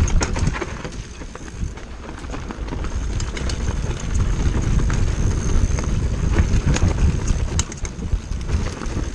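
Hardtail mountain bike descending a rocky trail at speed, heard close up from the handlebars: tyres rumbling and crunching over rock, with the chain and frame clattering in quick irregular knocks. A heavy wind rumble on the microphone runs under it all, dipping for about two seconds early on.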